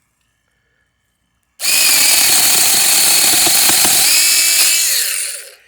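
A 28-volt cordless 4-inch mini chainsaw starts about a second and a half in and runs loudly for about three and a half seconds, cutting through a branch; its whine shifts in pitch partway through, then it winds down near the end.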